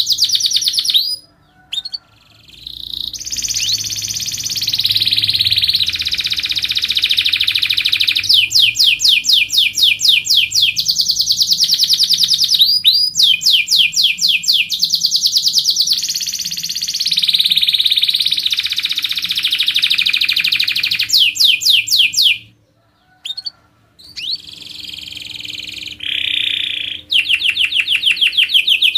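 Domestic canary singing a long, loud song of fast, closely repeated high trills and dense rolls, with two short pauses, about a second in and again a few seconds before the end.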